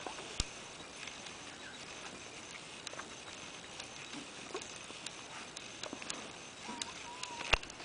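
Great Pyrenees puppies scuffling in play, faint, with scattered light taps and ticks of paws and claws. A brief faint squeak comes near the end, followed by a single sharp click, the loudest sound.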